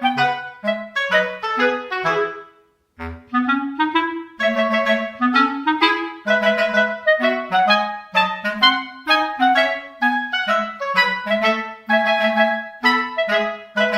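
Music: a bouncy woodwind melody of short, detached notes, with a brief break about three seconds in.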